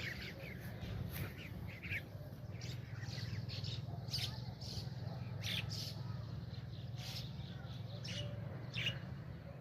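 Birds giving short chirps and calls at irregular intervals over a steady low hum.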